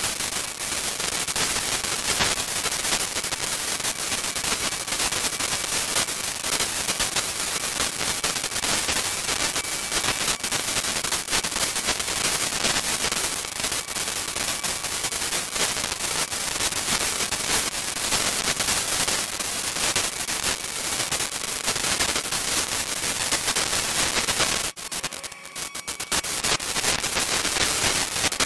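Dense crackling radio static with a steady hiss, thinning out briefly about 25 seconds in before resuming. It is presented as radio noise and electromagnetic interference picked up on the camera's audio.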